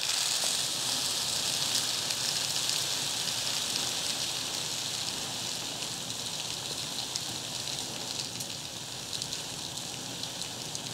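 Calcium nitrate granules being poured from a plastic bag into a paper cupcake liner on a kitchen scale: a steady, rain-like hiss of trickling grains that slowly eases off, with a few faint ticks near the end.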